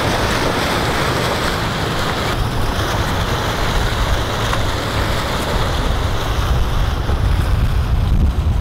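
Wind buffeting the microphone, with the steady rush of splashing fountain water that thins after about two seconds.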